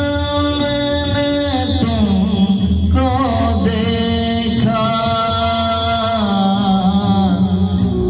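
A man singing an old song into a handheld microphone, holding long notes with vibrato.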